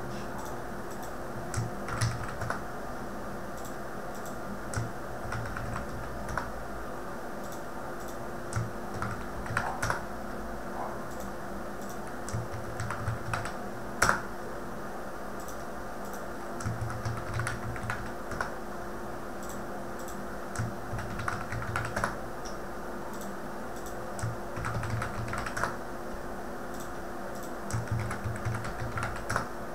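Computer keyboard typing in short irregular bursts, mixed with mouse clicks, one sharper click about halfway through. A faint steady hum runs underneath.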